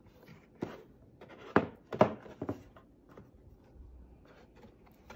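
Handling noise from a router and its cardboard box: a few light knocks and taps, with two sharper knocks about a second and a half and two seconds in, as the router is set down on a table and the cardboard tray is handled.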